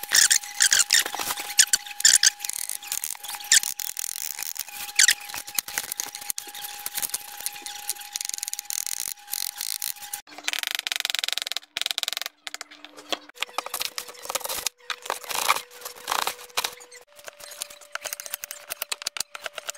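Folding knife's blade (Spyderco Native Chief) cutting vegetables on a cutting board: a run of crisp slicing strokes and light taps of the edge on the board. Under the cuts runs a steady thin whine that jumps to a new pitch a few times.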